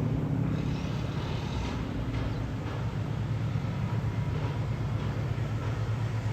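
Aircraft engines droning steadily overhead, a low even hum.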